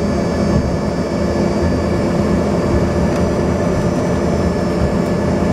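Cabin noise inside an Embraer ERJ-145 regional jet taxiing: its rear-mounted Rolls-Royce AE 3007 turbofans run steadily, a high steady whine over a low rumble.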